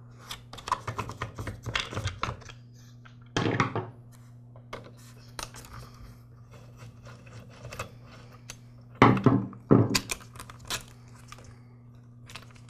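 Hard plastic clicks, knocks and scraping as a gas string trimmer's air filter cover and housing are unscrewed and pulled off with a screwdriver. There is a louder thunk about three and a half seconds in and two more near the nine-second mark.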